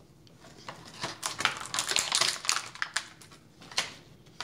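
Small hard-plastic toy shopping bags being set down and moved about on a glass tabletop: a quick, irregular run of light clicks and taps, starting about a second in.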